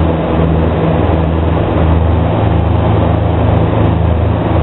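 Cabin noise of a de Havilland Canada Dash 7 in flight: the four turboprop engines and propellers make a steady, loud low drone, with an even rushing hiss of airflow over it.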